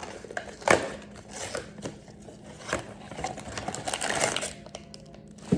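A blind-box toy package being handled and opened by hand: scattered clicks and taps of cardboard and plastic, with a stretch of rustling about four seconds in.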